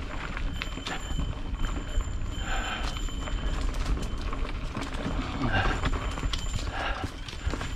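Mountain bike clattering and rattling over a rough, rocky trail in irregular knocks, over a steady low rumble of wind on the microphone.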